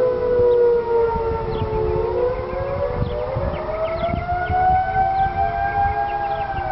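Tornado warning sirens wailing, several at once at different pitches. The main wail sinks, then rises about two seconds in and begins to fall again near the end, over steadier lower siren tones.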